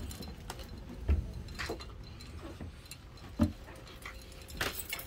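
Two dull thumps, about a second in and again a couple of seconds later, among light clicks and rattles, with a cluster of sharper clicks near the end: footsteps and knocks of people moving about inside a sailboat's wooden cabin.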